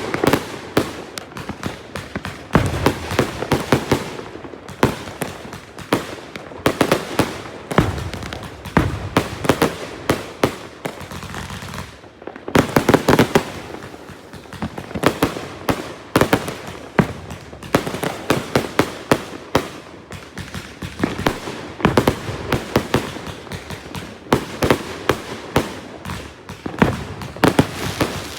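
A 168-shot Master Mind consumer firework cake firing: rapid volleys of sharp bangs, several a second, with short lulls between volleys.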